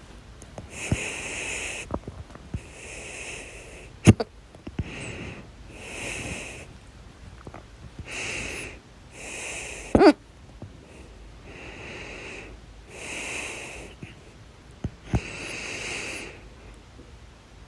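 A person hiccuping: several sharp, sudden hiccups, the loudest about four and ten seconds in, with audible breaths in and out between them.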